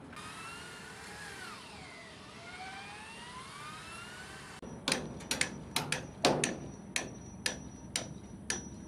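Sharp metal knocks, about two a second over the last four seconds, from workers on ladders fastening steel lean-to trusses to wooden posts. Before them there is only faint background with a few faint rising and falling whistles.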